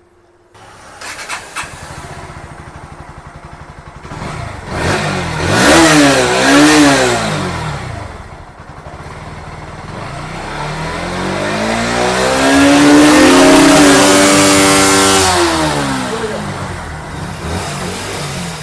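Bajaj Pulsar NS160 BS6 single-cylinder fuel-injected engine starting and idling, then revved: two short throttle blips, then a longer rev that rises, holds and falls back to a steady idle. The engine picks up and returns to idle without stalling, with its freshly cleaned fuel pump.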